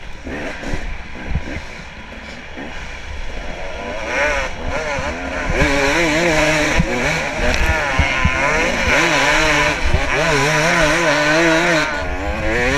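Dirt bike engine heard from a helmet-mounted camera, running lower with knocks from the rough trail at first, then revving hard from about halfway, its pitch rising and falling over and over as the throttle is worked, over a steady low rumble of wind on the microphone.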